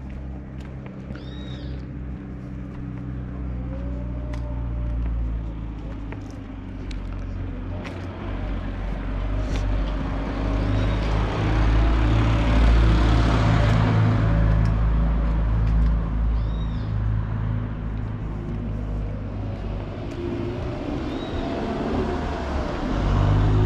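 A motor vehicle passes close by on the street: a steady low engine hum with engine and tyre noise that swells to a peak about halfway through, then eases off, and rises again near the end.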